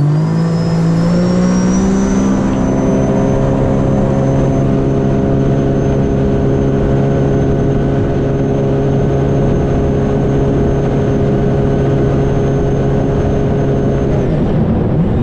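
Stage 1 2021 Sea-Doo RXT-X's supercharged Rotax three-cylinder engine at full throttle on a top-speed pass with a 13/18 three-blade prop. The note climbs for the first two or three seconds, then holds steady at top revs with a high whine above it, and drops near the end as the throttle comes off.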